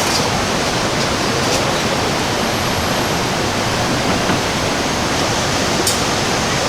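Steady rush of fast-flowing river water, with a few faint clicks.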